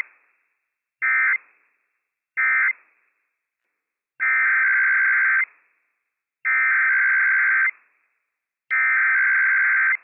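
Emergency Alert System SAME digital data bursts over NOAA Weather Radio, a harsh buzzing warble. First come the last two of three short end-of-message bursts, closing one test. About a second and a half later, three longer header bursts of about a second each, a second apart, open the next required weekly test.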